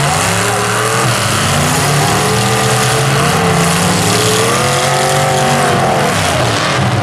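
Engines of several full-size demolition derby cars revving hard, loud and continuous, their pitches rising and falling and overlapping as the cars push against each other.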